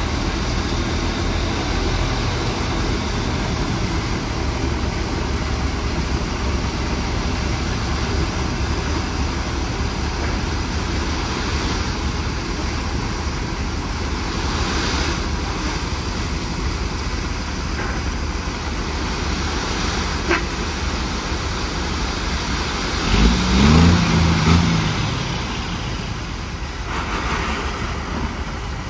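Dump truck's diesel engine running steadily while its hydraulic hoist tips the bed and gravel slides off, with a broad hiss over a low rumble. About 23 seconds in, a louder pitched engine sound wavers briefly.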